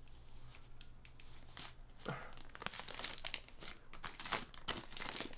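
Packaging crinkling and rustling in irregular bursts as a rolled desk mat that sticks inside it is worked out.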